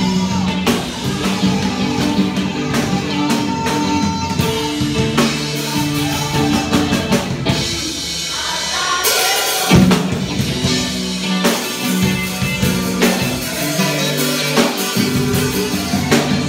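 Live band playing: an acoustic drum kit and an amplified electric guitar, with vocals. About halfway through, the low end drops out for a moment in a break, and the drums come back in with a loud hit.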